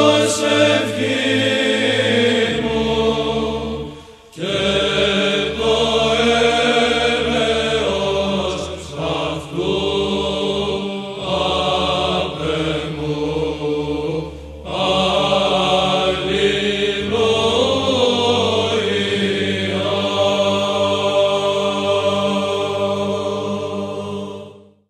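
Male monastic choir chanting a Byzantine psalm setting in plagal second mode, the melody voices moving over a low held drone. The singing breaks off briefly twice for breath and dies away near the end, closing the piece.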